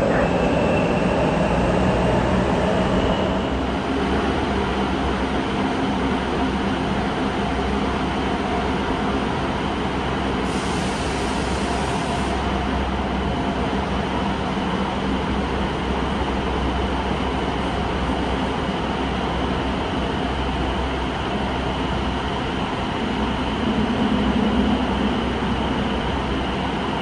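Subway train running in a tunnel, heard from inside the car: a steady rumble and running noise, with a motor whine that rises in pitch over the first few seconds as the train gathers speed, then holds steady.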